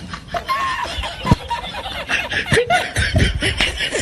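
Laughter, in quick repeated pulses.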